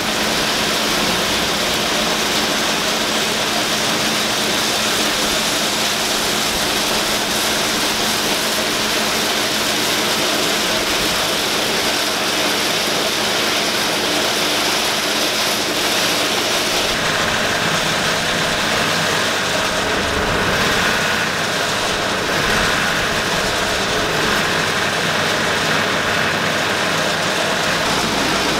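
New Holland 28 silage blower running flat out, driven by a tractor's PTO, as chopped corn silage pours in from a forage wagon and is blown up the pipe into the silo: a loud, steady rushing noise over the tractor engine's low hum.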